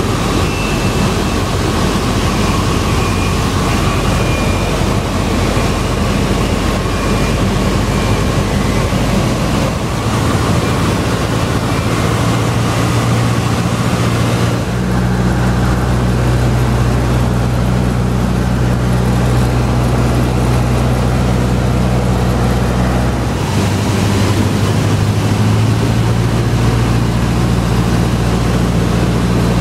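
Small floatplane's engine and propeller heard from inside the cabin while landing on water. The engine drone and rushing air are loud; the engine note drops about a third of the way in, the rushing air falls away soon after, and a steadier, lower engine hum remains as the plane slows on its floats.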